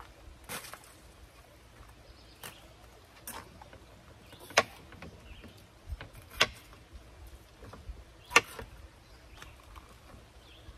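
A chef's knife slicing a red bell pepper on a wooden cutting board: irregular knocks of the blade on the board every second or two, the loudest three in the second half.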